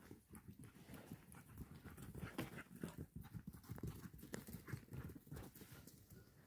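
Faint, irregular patter of puppies' paws thudding on dry dirt as they run about.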